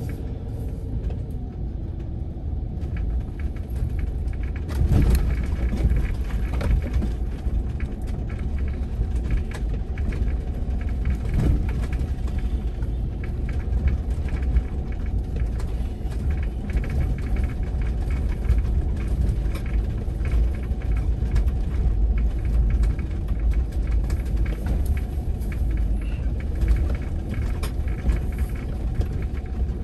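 Steady low rumble of a vehicle driving slowly, with a faint even engine hum and small knocks and rattles.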